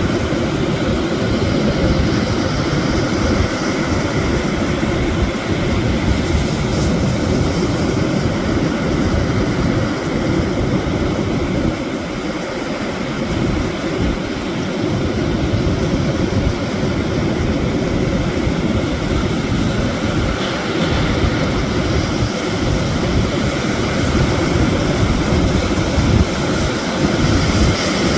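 Sea surf washing over stones on the shore, a steady rushing noise, mixed with wind rumbling on the microphone.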